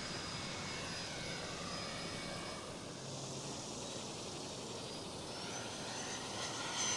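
Electric ducted fan of a radio-control jet model (80mm EDF) whining in flight over a steady rush of air, its high whine rising in pitch about five seconds in as the fan spools up.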